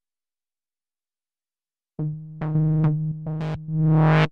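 Dry synthesizer sequence (a pitched hook) with no reverb. After about two seconds of silence comes a run of short notes on one low pitch. Its tone brightens under modulation and opens up most on the last, longer note.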